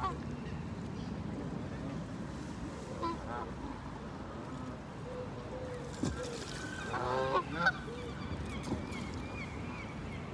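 A flock of waterfowl calling: a few short calls early on, then a loud cluster of calls about six to eight seconds in, over a steady low background noise.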